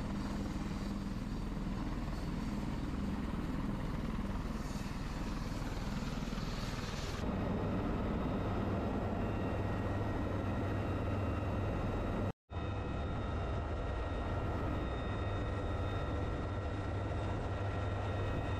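UH-1Y Venom helicopter running on deck, its turbine engines and rotor making a steady, loud noise with a thin steady whine, heard from inside the open cabin. The sound changes about seven seconds in and drops out for a moment about twelve seconds in.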